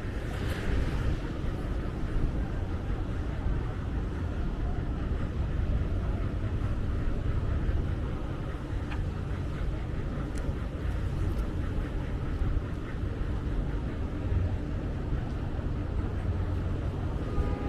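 Steady road-vehicle rumble of engines and tyres, low and even, with no single event standing out.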